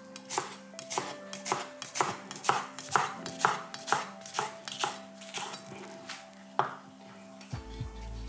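Kitchen knife chopping red onion on a cutting board, even strokes about two a second, stopping about a second and a half before the end.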